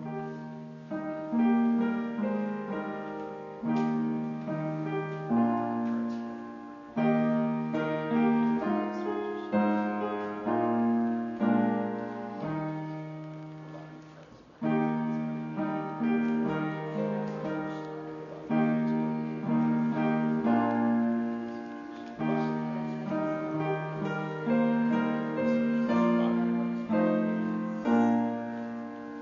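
Piano playing slow chords, each struck and left to ring and fade before the next.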